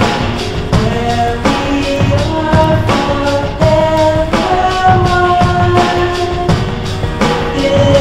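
Music: a song with a steady drum beat under long held melody notes.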